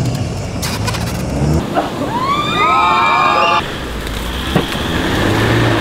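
Off-road 4x4 engines running and revving on a muddy track. A bit past halfway through, a high-pitched wail rises, holds for about a second and a half, then cuts off suddenly.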